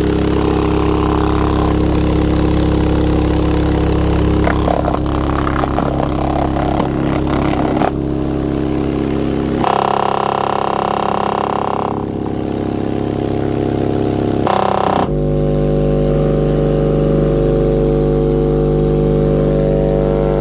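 Sundown Audio Xv3 12-inch subwoofer, run free-air on over 4,000 watts, blaring loud, heavily distorted bass test tones that jump to a new pitch every few seconds. It is being driven to destruction: the voice coil overheats and the sub burns out.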